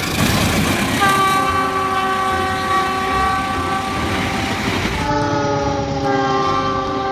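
Diesel locomotive air horn sounding two long blasts, each a multi-note chord, the second drifting slightly down in pitch, over the rumble and wheel clatter of the passing train.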